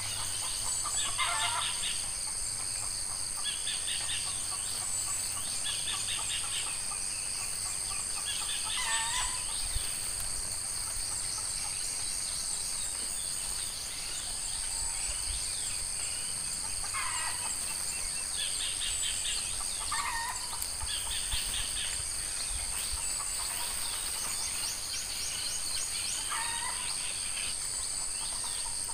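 Outdoor ambience of a steady, high-pitched insect drone, with short bird calls breaking in every few seconds.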